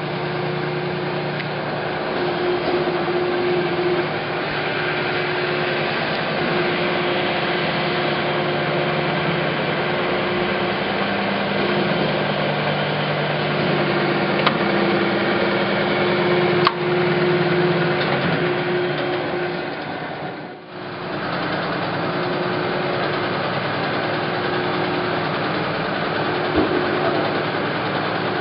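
Harrison M300 engine lathe running under power, a steady mechanical hum and gear whine from the spindle and headstock, with a few sharp clicks. About two-thirds of the way through the sound briefly drops, then resumes.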